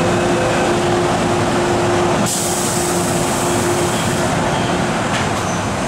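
MTR M-Train electric multiple unit standing at the platform: a steady hum with a held mid-pitched tone that fades out near the end, and a sudden high hiss of air starting about two seconds in and dying away about two seconds later.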